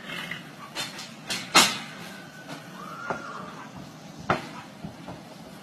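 A horse's hooves knocking and thudding on the floor of a horse trailer as it shifts inside: a few scattered knocks, the loudest about one and a half seconds and four seconds in.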